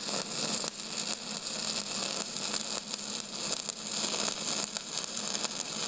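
Stick welding arc crackling and sizzling steadily, a dense run of fine snaps and hiss.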